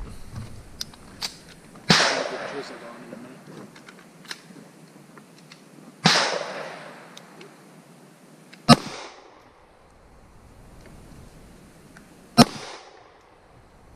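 Four pistol shots fired one at a time, a few seconds apart, each a sharp crack; the first two trail off in a long echo.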